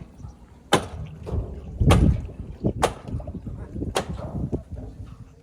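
A heavy stone-block hammer on a bamboo handle striking the top of a bamboo fence post, driving it into the lake bed. There are four sharp blows about a second apart, the second one the heaviest, over a steady low rumble.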